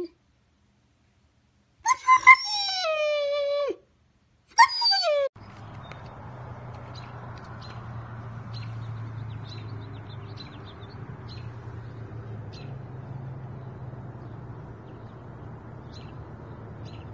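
Yellow Labrador retriever vocalizing: a drawn-out whine that slides down in pitch, about two seconds in, then a short whine near five seconds. After that there is a steady low rumble with faint scattered ticks.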